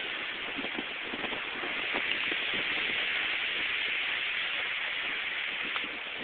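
Steady rushing hiss of storm wind during a tornado, with a few faint crackles and knocks.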